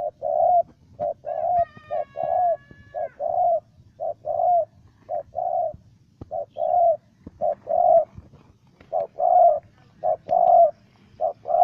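Spotted dove cooing: low coo notes repeated over and over in quick groups of short and longer notes. A brief, thin, higher whistle joins in about two seconds in.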